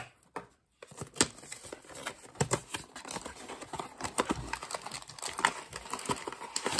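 Small cardboard blind box being handled and its flap opened: a sharp knock at the start, then a string of light, irregular taps, clicks and scrapes of cardboard.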